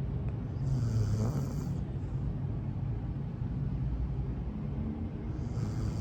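A dog snoring in its sleep: two snoring breaths about five seconds apart, each a low rasp with a hiss of air, over a steady low rumble.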